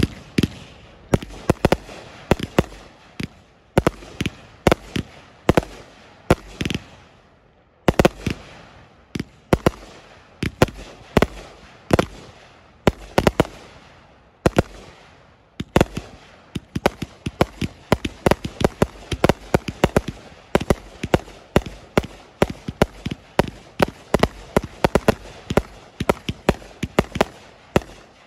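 Sky Bacon 1500-Gram Finale, three 500-gram fireworks cakes firing together: a rapid string of shots and air bursts, two or three a second at first and quickening to three or four a second in the second half. The last shot comes near the end.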